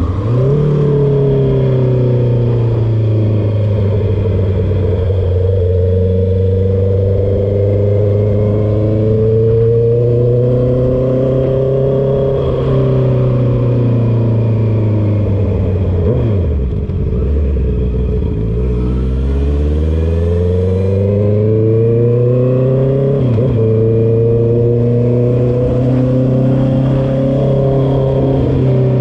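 Honda CB650R's inline-four engine running loud through a full exhaust with the dB killer removed, under way on the road. The revs climb slowly and dip briefly at each gear change, a few times; about two-thirds through they fall away as it slows, then build again.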